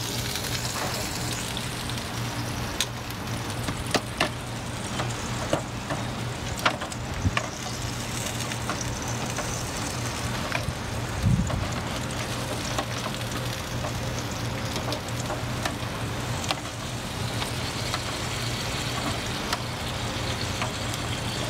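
Steady sizzling and crackling from a Char-Griller Gravity 980 charcoal grill cooking sauced chicken thighs, over a low steady hum. Scattered sharp clicks come from metal tongs against a foil pan and the grate, with a dull thump about halfway through.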